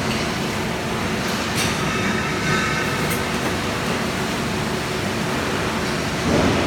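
Automatic air-tank leak-test machine running: a steady mechanical and air noise with a few faint steady tones and occasional light clicks, and a brief louder rush near the end.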